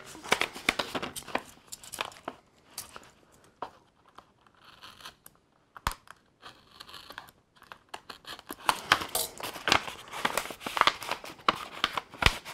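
Brown paper parts bag being torn open and crinkled by hand: a run of sharp rips, crackles and rustles, sparse in the middle and busiest in the last few seconds.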